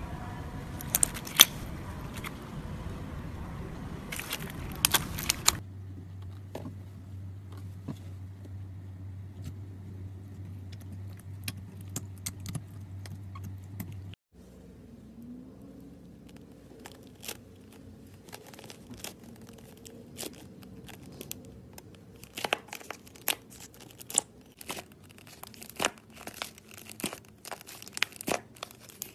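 Slime being squeezed, poked and stretched by hand, making many sharp sticky clicks and pops. The clicks come thickest in the first five seconds and the last several; a low steady hum runs under the stretch between.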